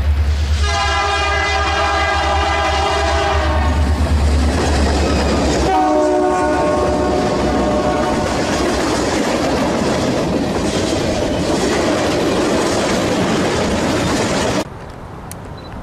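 Diesel locomotive air horn sounding a long multi-note blast, then, after a cut, another horn blast followed by the loud rumble and wheel clatter of a freight train on the rails; the sound drops off suddenly near the end.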